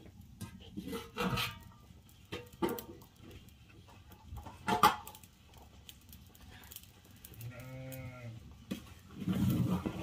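A farm animal gives one low, drawn-out call lasting just over a second, near the end. Before it come a few sharp knocks and clinks of a metal ladle against a large cooking pot.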